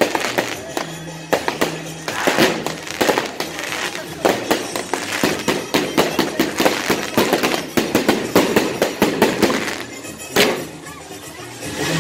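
Fireworks going off: a dense run of sharp pops, crackles and bangs from aerial shells bursting overhead, with one strong bang about ten and a half seconds in, followed by a quieter moment. Music plays underneath.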